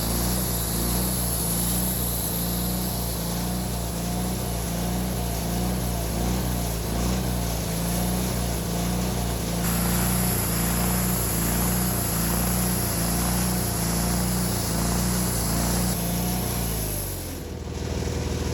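Wood-Mizer LT40 band sawmill's engine running steadily at working speed, with a high hiss that grows about ten seconds in. Near the end the engine pitch drops as it throttles down.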